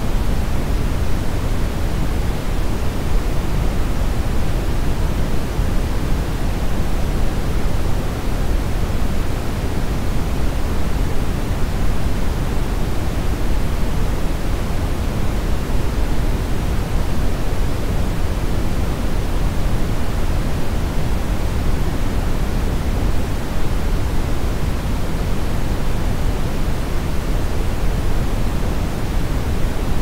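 Brown noise: a steady, unchanging deep rushing hiss, strongest in the bass and fading toward the treble.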